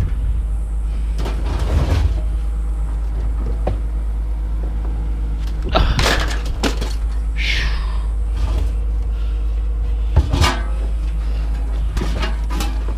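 Scrap being unloaded: a few bangs and clatters of junk being dropped and dragged, one hard hit about ten seconds in, over a steady low mechanical hum.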